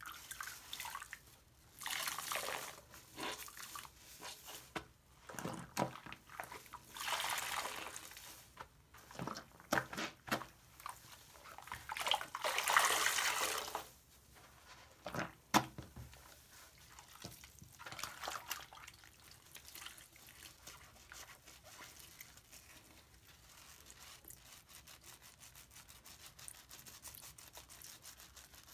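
Wet, soapy sponge being squeezed and rubbed by hand in a sink, with water and lather squelching and dripping in irregular bursts. It is loudest a little before halfway and softer from about halfway on.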